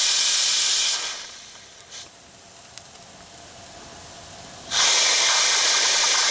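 Steam hissing loudly through a boiler's steam injector as its valve is worked to get the injector to pick up. The hiss dies away about a second in and comes back suddenly near the end.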